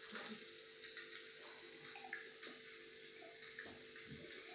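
Quiet room tone: a steady faint hiss and hum, with a few soft small sounds as a woman drinks water from a glass.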